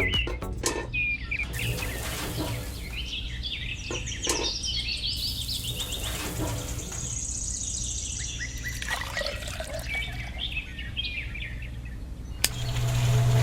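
Small birds chirping in many short, quick notes over a steady low hum.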